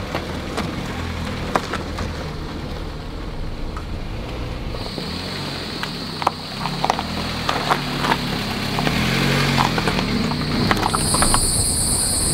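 Honda Jazz driving slowly over a potholed, gravel-strewn road: engine running with its pitch rising and falling, and scattered small clicks that are loose stones under the tyres. A steady high-pitched insect drone starts about five seconds in, and a second, higher one joins near the end.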